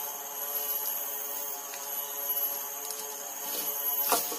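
Stihl chainsaw idling steadily, with a brief louder burst about four seconds in.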